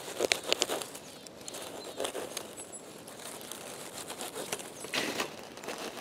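Dry pine needles and forest litter rustling and crackling as chanterelle mushrooms are cut from the moss with a small knife, in short bursts: just after the start, about two seconds in and again about five seconds in.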